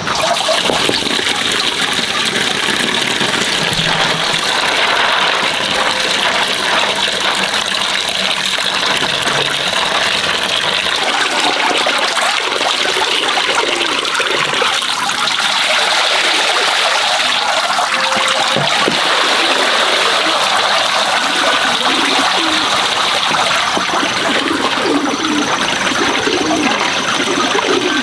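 Water running or pouring steadily.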